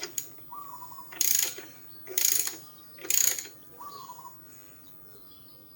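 Socket ratchet clicking in three short strokes about a second apart, tightening the bolt that secures the exhaust end can.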